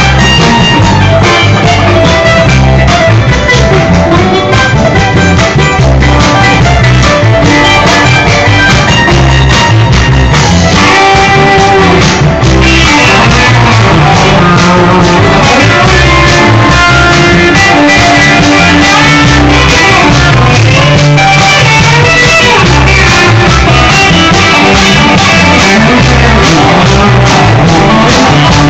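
Live band playing loud music with guitar, bass, drums and singing.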